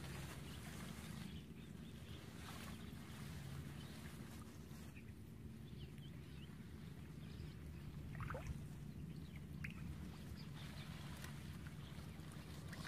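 Quiet outdoor ambience: a steady low rumble with faint sloshing of shallow marsh water, and a few short, faint chirps in the middle.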